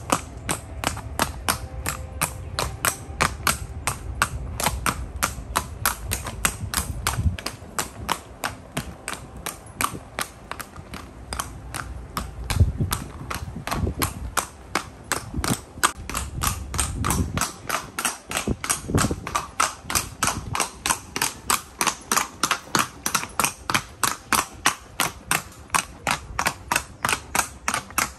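Colombian paso fino horse's hooves striking cobblestones in a fast, even gait, about four sharp clicks a second. The hoofbeats grow crisper and louder after about twenty seconds.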